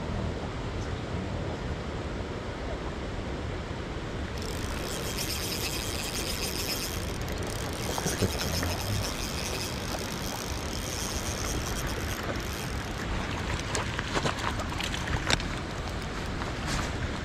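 Steady rushing noise of a running river and falling rain. A brighter high hiss joins for several seconds in the middle, and a few light clicks come near the end.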